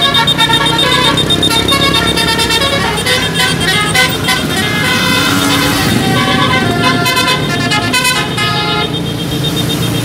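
Bus telolet musical air horn playing a quick melody of many short horn notes, one after another, loud.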